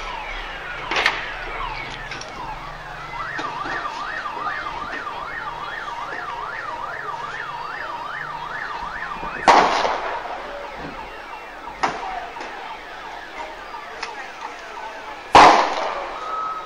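Emergency vehicle siren wailing in a fast rising-and-falling yelp, about three cycles a second, cut across by a loud sharp bang about nine and a half seconds in. A second loud bang comes near the end, with smaller bangs earlier and in between.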